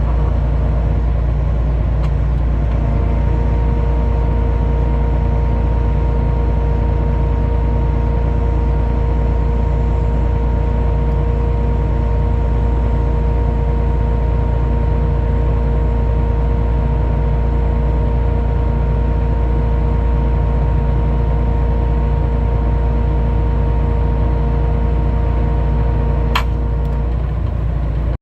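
A vehicle engine running steadily with a strong low rumble. A steady whine joins a few seconds in and stops near the end, with a single click shortly before it stops.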